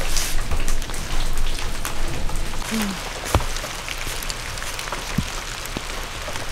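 Steady rain falling, with scattered sharp ticks of drops striking nearby surfaces.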